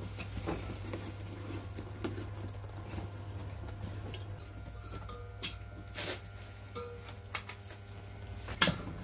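Rubber inner tube being pushed and worked by hand into a knobby off-road motorcycle tyre: a soft rubbing and rustling of rubber, broken by a few light knocks, over a steady low hum.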